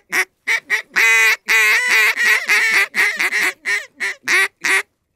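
Hand-held duck call blown in a fast series of loud, nasal quacks, several notes drawn out longer about a second in, then a run of short quacks that stops just before the end.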